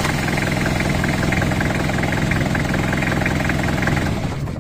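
1994 Toyota Hilux's 2.8-litre diesel engine, just started on the starter motor from a supercapacitor/lithium hybrid cranking battery, running steadily, then shut off and dying away near the end.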